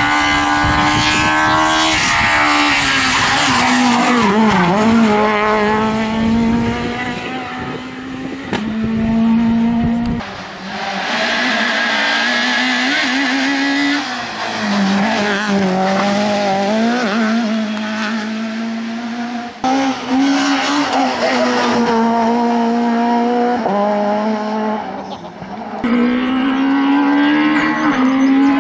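Rally-prepared Peugeot 106 S16 1.6-litre 16-valve four-cylinder engines running hard at high revs, rising and falling through gear changes as the cars drive past. The sound jumps abruptly from one car to another several times.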